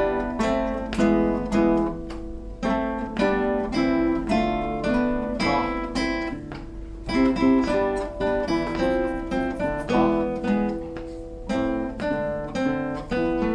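Acoustic guitar music: plucked notes and chords in a steady rhythm, a simple tune played over the chords.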